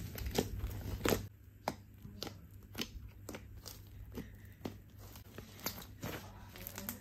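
Soft clay-mixed slime being kneaded and squeezed by hand, giving irregular squishy clicks and crackles, the loudest about a second in.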